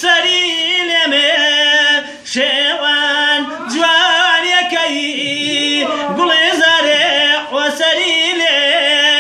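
A man singing unaccompanied in a traditional Kurdish style, holding long notes with a wavering, ornamented pitch and pausing briefly for breath about two seconds in.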